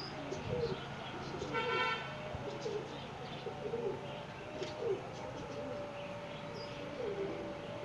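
Domestic pigeons cooing, many short low coos overlapping throughout. About a second and a half in, a short horn toot sounds over them.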